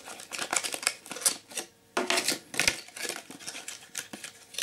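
Clear plastic blister pack being cut and pried open with a folding knife: an irregular run of crackles and sharp clicks from the stiff plastic.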